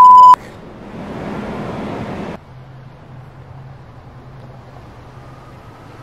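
A short, loud electronic beep at one steady pitch lasting about a third of a second, followed by city street background noise that cuts off about two seconds later, leaving a faint low hum.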